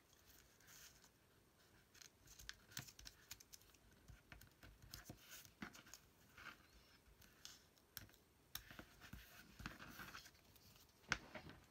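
Faint, scattered rustles and light taps of paper being folded and pressed down with the fingers, with a sharper click near the end.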